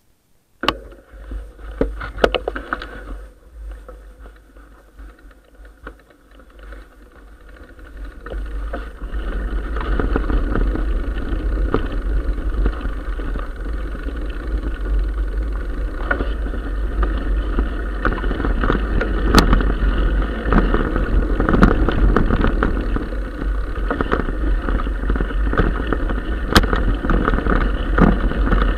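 Wind buffeting the camera microphone and mountain-bike tyres rumbling over a rough gravel track, with sharp knocks and rattles from bumps. A few clicks near the start, then the rumble grows loud about nine seconds in as the bike gets going.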